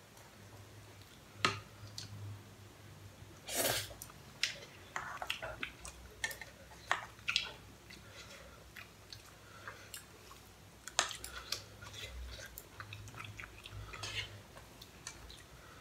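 Close-up eating of pasta with chopsticks: chewing, with scattered sharp clicks of chopsticks against the pan and a brief louder noisy burst about three and a half seconds in.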